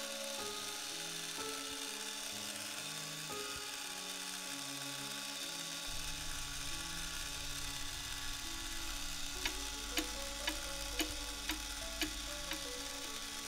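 Soft background music with a slow melody of held notes over the faint whirr of an electric corkscrew's motor. In the last few seconds a clock ticks, about two ticks a second.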